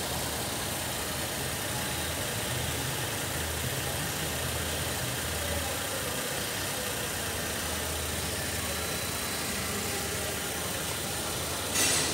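Holden Commodore 3.6-litre V6 engine, with 186,911 km on it, idling steadily in the car with the bonnet open. A brief rush of noise comes through just before the end.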